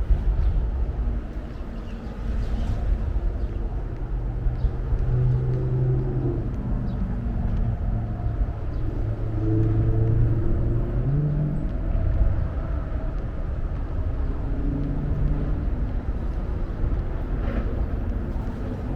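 Outdoor city ambience dominated by a steady low rumble of road traffic, with the engine hum of passing vehicles rising and fading.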